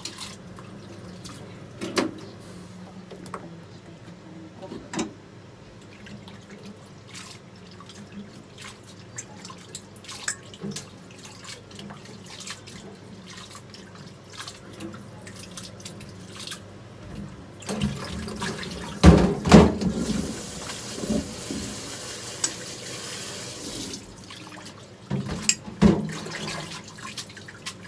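Water handling at a kitchen sink while cooked soba noodles are rinsed and cooled. Scattered knocks and clatter of containers at the sink come throughout. Past the midpoint a tap runs for about six seconds, with the loudest knocks as it starts and again near the end.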